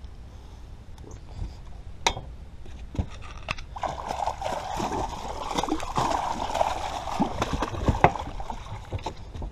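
Hooked catfish thrashing and splashing at the water's surface beside the boat as it is brought into a landing net. A couple of sharp knocks come about two and three seconds in, and the splashing is heaviest from about four seconds to about eight.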